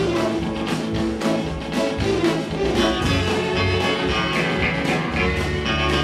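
Early-1960s twangy electric-guitar instrumental record: the lead guitar plays the melody over a backing band with a steady beat.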